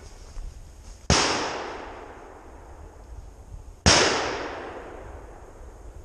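Two loud shotgun shots about three seconds apart, each followed by a long rolling echo that fades over a second or two, fired at a buck jumped by the dogs.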